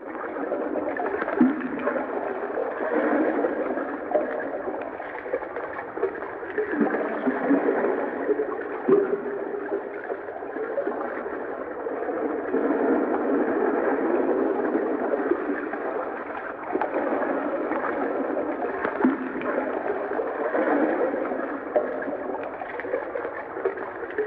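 Underwater ambience: a steady, muffled wash of water noise with gurgles and a few scattered clicks and knocks.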